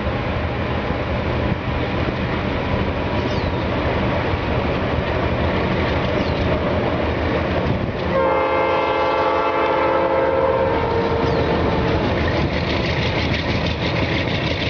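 A train running with a steady rumble, and a long horn blast starting about eight seconds in and lasting some three seconds.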